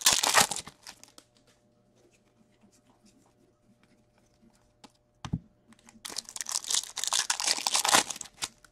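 Hockey card pack wrappers being torn open and crinkled by hand: a burst of tearing and crinkling at the start, a single thump a little past five seconds, then a longer stretch of tearing and crinkling from about six seconds until just before the end.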